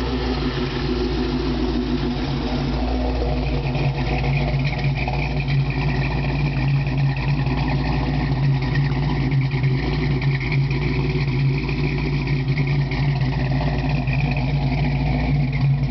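Supercharged 5.4-litre SOHC Ford Lightning V8 in a Mustang idling steadily, with no revving.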